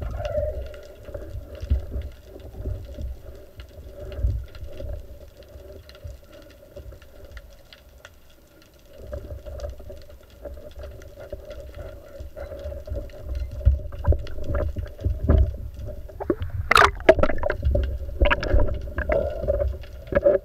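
Underwater sound heard through a camera housing mounted on a speargun: uneven low rumbling of moving water with a faint steady hum, and a cluster of sharp clicks and knocks near the end.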